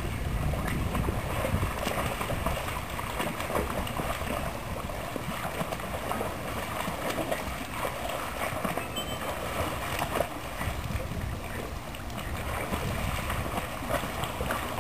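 Pool water splashing and sloshing continuously as a person wades and splashes and a Sheltie paddles alongside, with many small irregular splashes.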